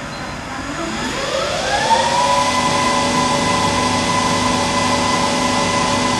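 Acer E-lathe 1440V engine lathe spinning up under its electronic variable-speed drive (3 hp AC motor on a vector frequency drive): a whine rising in pitch for about a second and a half, then running steady at constant spindle speed.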